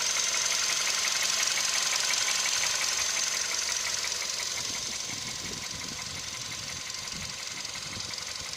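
Volkswagen CFNA 1.6-litre four-cylinder petrol engine idling with a fast, regular knock. The knock and the engine grow fainter about halfway through.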